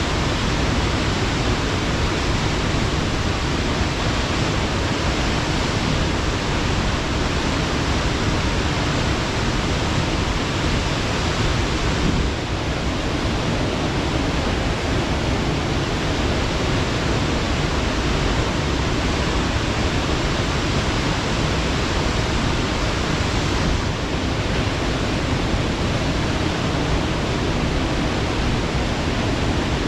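Waterfall: water falling steadily onto rocks and a plunge pool, a constant, full rushing noise.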